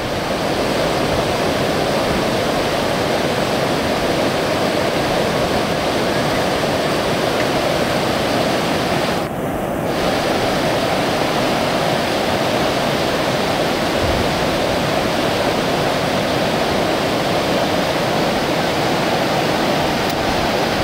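Whitewater river rapids rushing steadily, a continuous dense roar of water that briefly dips about nine seconds in.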